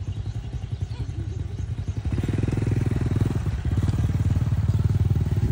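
Motor scooter engine running with a rapid, even pulse, growing louder about two seconds in.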